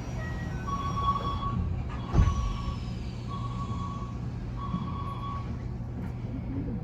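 An electronic beeper sounding a repeated mid-pitched tone, about one beep every 1.2 seconds, over the steady low hum of a Keikyu electric train. A faint high whistle falls in pitch about two seconds in.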